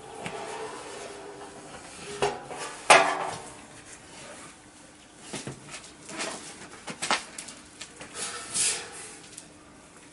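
Empty steel barrel being handled, lifted and tipped: a series of hollow metallic knocks and clanks with some scraping. The loudest knock comes about three seconds in, and there is a longer scrape near the end.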